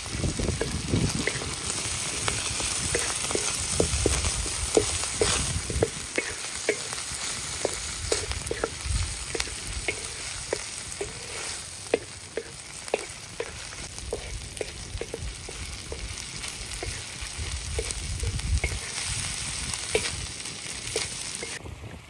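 Food sizzling as it fries in a pan, with many short clicks and taps throughout, typical of stirring.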